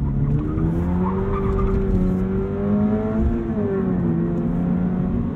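2022 Subaru BRZ's 2.4-litre boxer four-cylinder engine pulling under acceleration, heard from inside the cabin. Its note climbs slowly, dips in pitch a little past three seconds in, then holds, over steady road noise.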